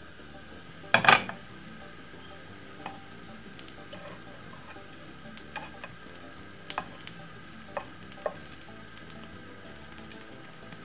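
A pancake frying in oil in a non-stick frying pan: a steady sizzle with scattered small pops and crackles from the hot oil. One loud short knock comes about a second in.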